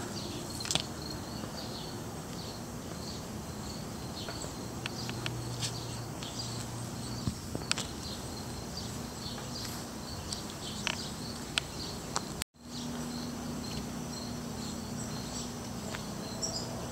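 Outdoor ambience with insects chirping, a short high chirp repeating steadily a couple of times a second over a soft background hiss, with a few faint ticks.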